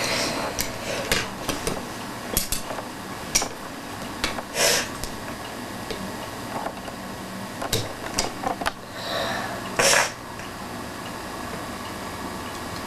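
Scattered sharp clicks and light knocks of a long screwdriver working at a hard screw on toilet flush-mechanism parts, with two short hissing bursts about five and ten seconds in.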